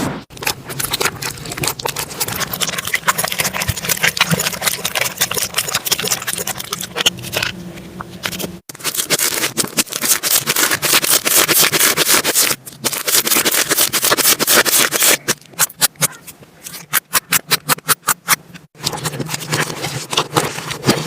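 Slime being squished and handled by hand, with dense wet clicking, popping and crackling, in short clips joined by abrupt cuts. Near the end comes a quick even run of sharp pops, about six a second.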